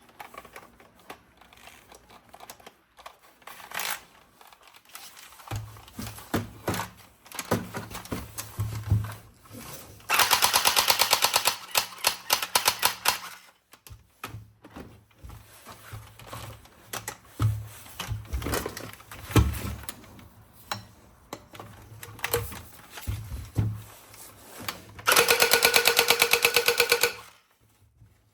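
Toy gun firing in two long rapid-fire bursts, one of about three seconds and one of about two seconds near the end, each a fast even rattle of clicks. Scattered clicks and knocks of plastic being handled fall in between.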